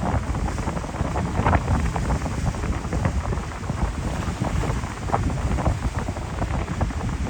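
Gusty storm wind buffeting the microphone: a steady low rumble with scattered short crackles.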